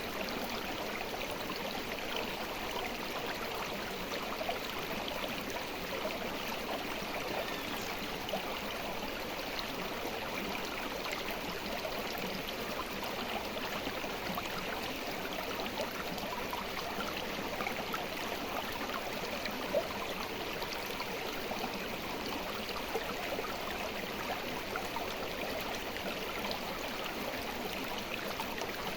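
River water flowing steadily, a constant rush flecked with small gurgles and splashes.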